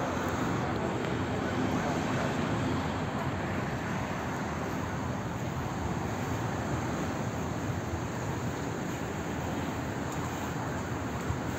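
Steady engine drone mixed with a rushing noise, unchanging and without distinct events.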